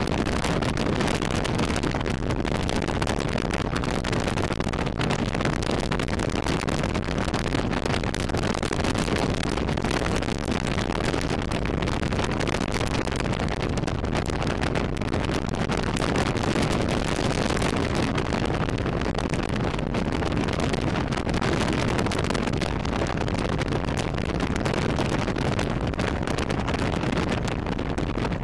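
Magni M16 gyroplane in flight: steady engine and propeller noise mixed with heavy wind rush on the open-cockpit microphone.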